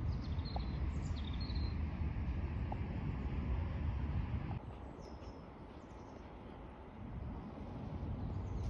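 Outdoor ambience: a steady low rumble that drops a little about halfway through, with a few faint, short bird chirps.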